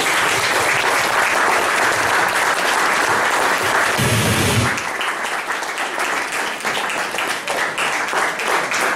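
Audience applauding: a dense wash of clapping for about five seconds that then thins into scattered individual claps.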